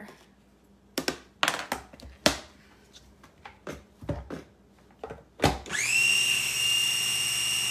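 A few clicks and knocks as the motor head is set onto a small electric food chopper's bowl. About five and a half seconds in, the chopper's motor starts with a rising whine and runs steadily at a high pitch, working hard on a bowl filled to the brim.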